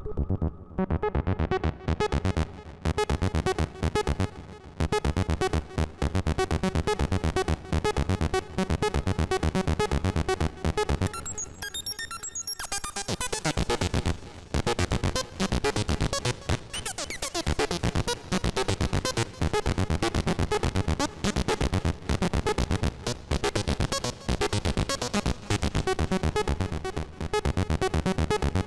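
Kassutronics 3340-based Eurorack VCO playing a fast sequenced pattern of short, buzzy synth notes in a modular patch. The notes run densely, thinning out briefly a little before halfway before the full pattern returns.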